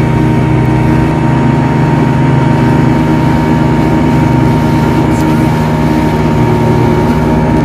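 Speedboat engine running steadily under way, heard from on board with the rush of water past the hull.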